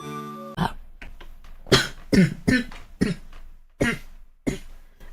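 A young woman's dry cough: about seven short coughs in a run, some in quick pairs, spaced half a second to a second apart.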